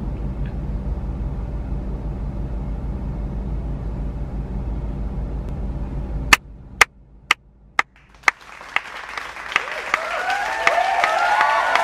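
Low, steady bass-heavy music that cuts off suddenly about six seconds in. Then five sharp claps, about two a second, give way to applause and crowd cheering that swell up to the end.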